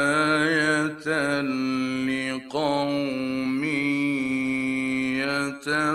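A male Quran reciter chanting in the melodic tajweed style, holding long ornamented notes, with short breaks about a second in and again midway.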